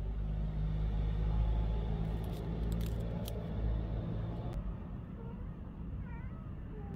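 A motor vehicle's engine running nearby: a low, steady rumble that fades after about four and a half seconds.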